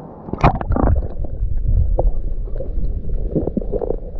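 Water sloshing and splashing around a camera held at and then under the water surface, with muffled, rumbling underwater noise and a sharp splash about half a second in.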